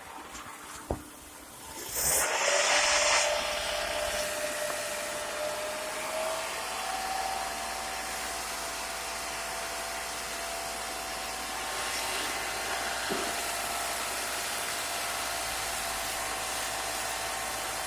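A car engine starts about two seconds in, just after an oil change, then runs steadily. Its steady whirring carries a thin whine that steps up slightly a few seconds later.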